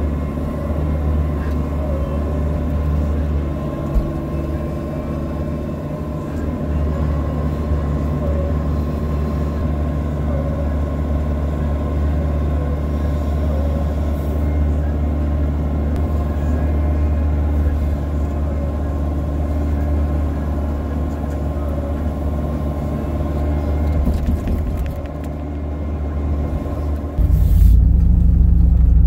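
Bobcat E42 mini excavator's diesel engine running steadily from inside the cab while it digs and lifts clay, with a single knock about four seconds in. Near the end this gives way to a Chevy Silverado 3500 dump truck's engine running, lower and louder, as it drives.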